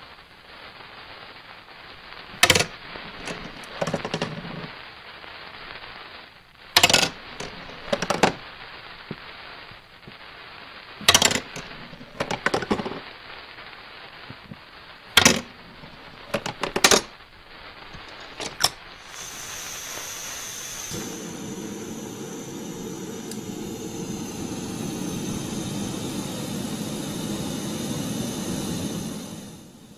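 Sharp knocks and clacks of a chain-reaction contraption's parts striking one another, about nine spread over the first twenty seconds. Then a canister gas stove comes on: a hiss about nineteen seconds in, followed by the lit burner's steady sound under a beaker of liquid, dropping away just before the end.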